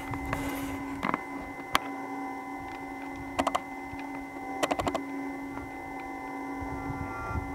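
Antlers of young red deer stags clacking together as they spar: a single knock about a second in, a sharper crack, then two quick rattling runs of clicks a little over a second apart. A steady hum runs underneath.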